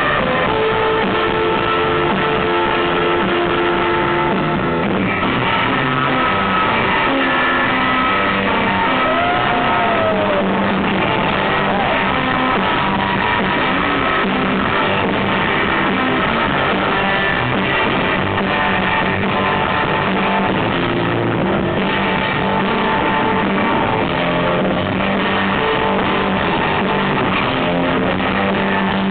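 Live surf rock: a loud Fender Stratocaster electric guitar playing with a rock band, continuous and without a break.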